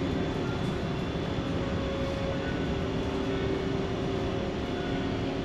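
Steady low drone of a large passenger ferry's engines and machinery heard on board, with a faint constant hum.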